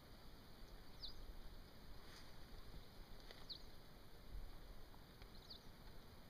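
Faint outdoor quiet with a small bird giving three short, high, falling call notes about two seconds apart, over a faint low rumble.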